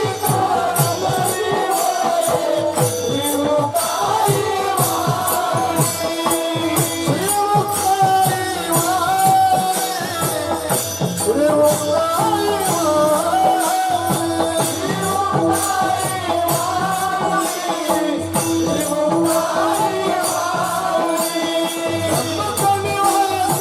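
Devotional kirtan song: a male voice singing a drawn-out melody over fast mridang drumming, with jingling percussion in the background.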